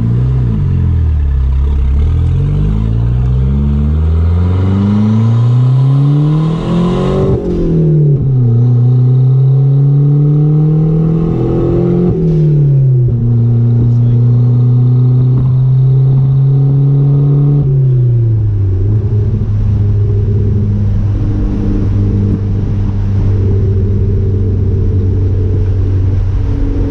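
Chrysler Conquest's turbocharged 2.6-litre G54B four-cylinder pulling hard through two gears, its pitch climbing and dropping at the upshifts about 7 and 12 seconds in. It then holds a steady cruise and eases off around 18 seconds in. It is being tested at wide-open throttle with a new fuel pressure regulator, and the owners judge it still running rich.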